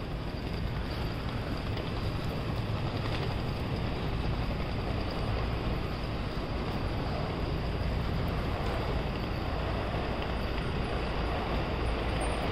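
Steady low rumble of street traffic and city background noise, growing a little louder near the end.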